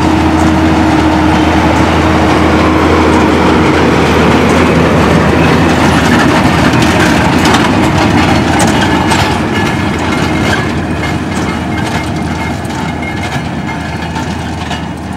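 Fendt 818 tractor's diesel engine running under load while pulling a Claas Quadrant 2200 large square baler, with the baler's mechanism clattering. The sound is loudest as the rig passes close and fades over the last third as it moves away.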